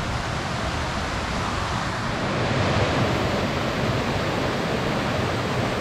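Small freshwater waterfall and stream running over rocks: a steady rushing of water that grows slightly louder as it is approached.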